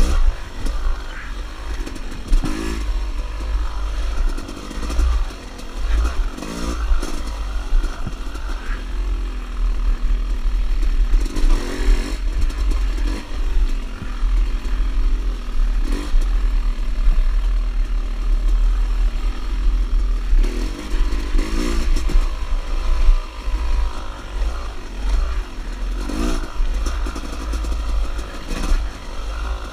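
Dirt bike engine revving up and down as the rider works the throttle and gears, heard from on the bike. A constant low wind rumble sits on the microphone, with occasional clattering knocks from the bike over bumps.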